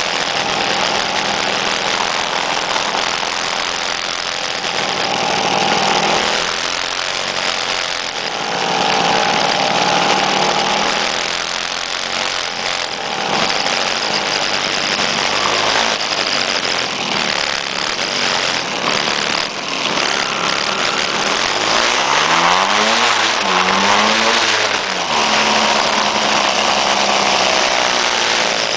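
Motor scooter engines running as they ride in a group, heard from a moving scooter with wind rushing over the microphone. Engine pitch rises and falls as riders rev, most clearly about three quarters of the way through.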